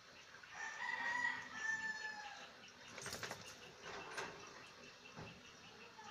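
A single drawn-out animal call in the background, falling slightly in pitch, followed about three seconds in by a few sharp clicks or knocks.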